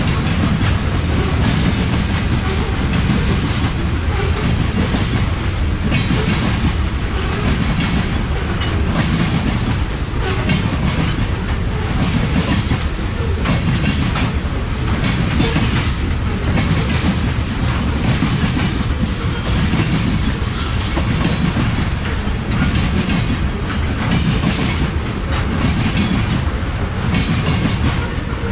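Freight train of tank cars rolling past: a steady low rumble of steel wheels on the rails, broken by repeated clickety-clack of the wheels.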